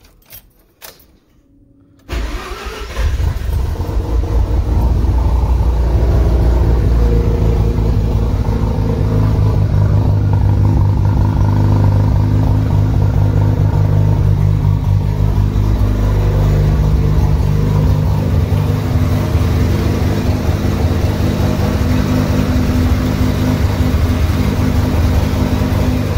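A 1992 Mazda RX-7's 13B-REW twin-rotor rotary engine starts about two seconds in and settles into a steady cold idle.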